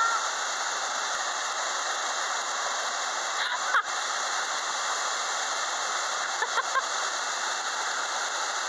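Waterfall and river rapids rushing steadily at close range. A few brief short sounds break through, one with a quick rise in pitch about four seconds in and a cluster near six and a half seconds in.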